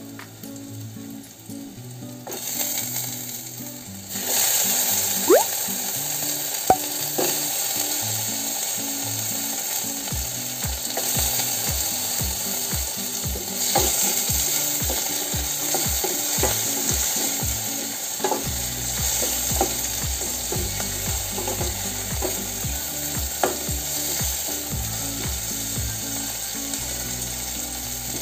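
Garlic, onion and tomato sizzling in hot oil in a stainless steel pot, stirred with a wooden spatula that taps and scrapes against the pot. The sizzle grows much louder about four seconds in, as the tomatoes go in.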